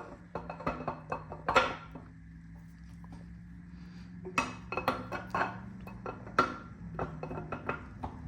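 Metal clinking and knocking as a camshaft is eased out through the cam bearings of a 5.3 L LS iron engine block, in bunches of sharp clinks with a quieter pause in the middle. A low steady hum runs underneath.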